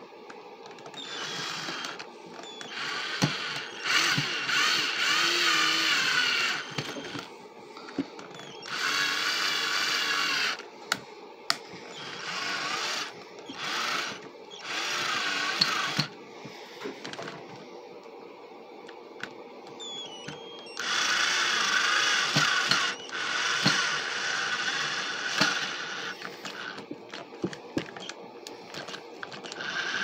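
Cordless drill run in about eight short bursts of one to three seconds each against a wall, its motor whine starting and stopping, with a few clicks and knocks in the pauses between.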